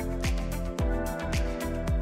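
Background music with a steady electronic beat, a deep kick drum about twice a second, over held synth chords.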